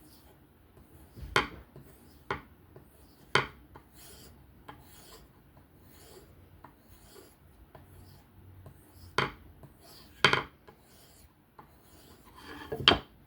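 Knife blade of 3V steel being drawn across a 1200-grit sharpening stone in separate scraping strokes at an uneven pace, about half a dozen of them louder than the rest.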